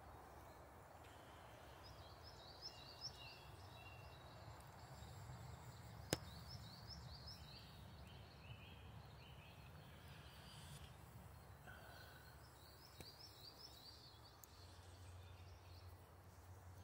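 Quiet woodland ambience: faint birdsong in short runs of high chirps, repeated a few times over a low steady background hum, with one sharp click about six seconds in.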